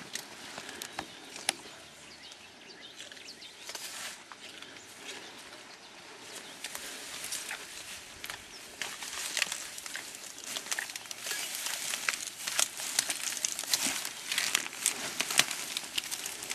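Leafy plants rustling and crackling with many small snaps as a young mountain gorilla pulls and strips stems to eat. The crackling grows busier and louder in the second half.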